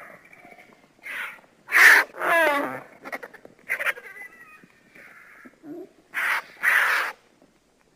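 Creature sound effect for an invented prehistoric bird: a run of about seven short, harsh animal-like screeches and cries, the loudest about two seconds in, followed by one with a fast wavering pitch that falls.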